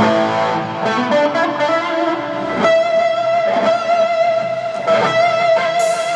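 Fender American Special Stratocaster electric guitar through an amp, playing a lead line: a few picked notes, then a long held note from about three seconds in.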